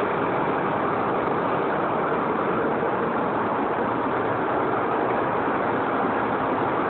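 Deutz 358 marine diesel engine running at a steady speed, a loud, even machinery din filling the engine room.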